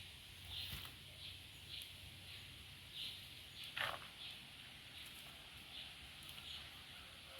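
Faint, short high chirps repeating about every half second, with one louder call about four seconds in.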